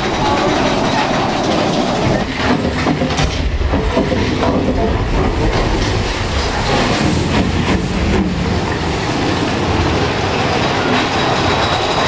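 Amusement-ride train running along its track, a steady loud rumble with rattling and clattering of the cars.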